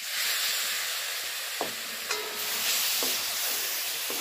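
Chopped tomatoes sizzling in hot oil and green pea paste in a kadhai, the sizzle starting suddenly as they go in. A spoon knocks and scrapes against the pan a few times as it is stirred.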